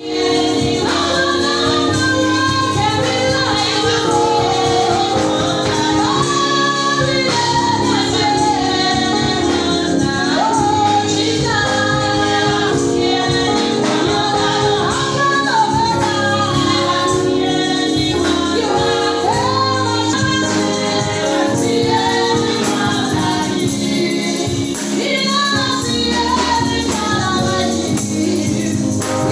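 Gospel choir singing with tambourine and keyboard accompaniment, steady throughout.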